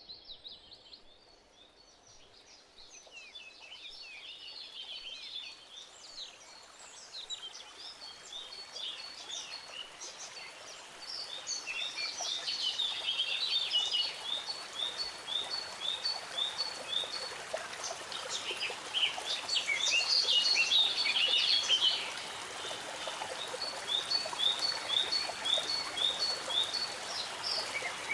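A stream running with a steady rush, with songbirds singing over it, one repeating a short high note a couple of times a second in runs. The whole sound grows louder over the first dozen seconds.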